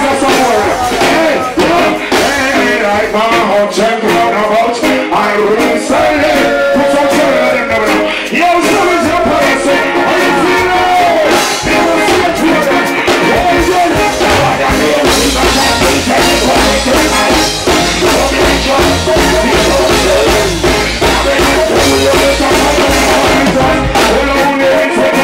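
Live reggae band performance: a male vocalist sings into a handheld microphone over drums, electric guitar and keyboards. A heavy bass line comes in strongly about two-thirds of the way through and drops out near the end.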